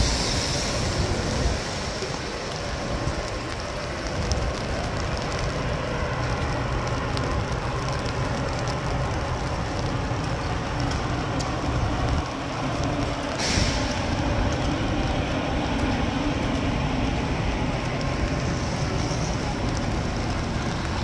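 Steady city street noise with passing vehicles, and a short sharp hiss like an air brake about 13 seconds in.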